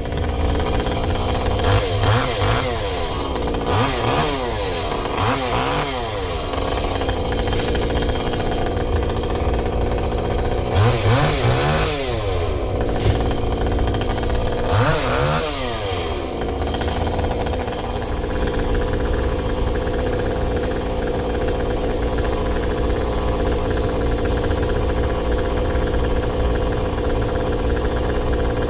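Chainsaw engine revving up and down about five times, then running steadily at a constant speed for the rest of the time.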